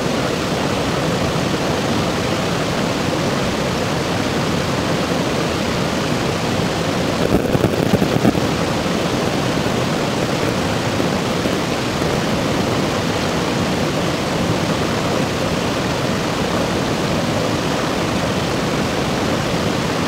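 Steady rush of a rocky mountain stream cascading over boulders, a continuous white-water noise, a little louder for a moment about seven seconds in.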